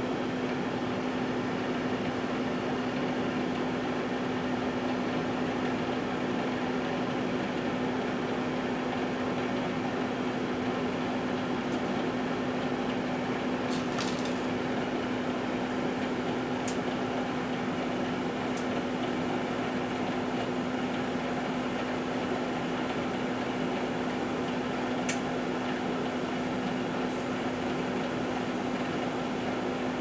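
1978 GE Dual Wave microwave oven running with a plate of broccoli inside: a steady electrical hum over fan noise. A few faint high ticks come now and then.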